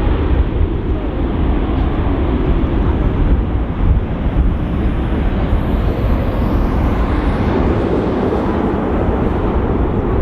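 Ryanair Boeing 737-800's CFM56 jet engines at takeoff power as it departs, a steady loud rumble mixed with wind buffeting the microphone.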